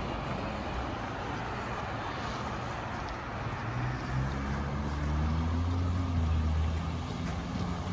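Street traffic on a wet, slushy road: a steady hiss of tyres, with a vehicle's low engine hum growing louder over the second half as it approaches.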